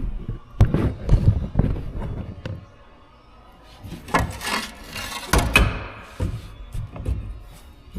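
Knocks and clunks of hand work on an excavator's shovel mount: tool and shovel being handled against the clamp and sheet metal. A louder scraping rush comes about halfway through.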